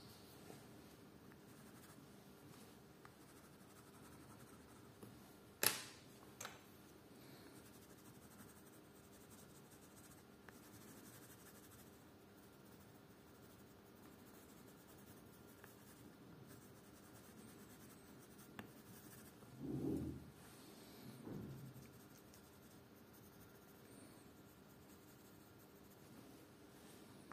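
Faint scratching of a coloured pencil on paper. A sharp click comes about six seconds in, and two soft low thumps come around twenty seconds.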